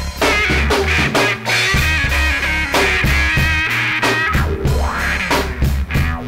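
Instrumental rock music with guitar, drums and synth, over a steady bass line.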